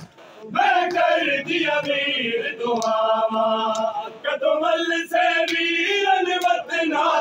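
A group of men chanting a noha, a Shia Muharram lament, together in long held notes. The chant breaks off at the very start and comes back in about half a second later.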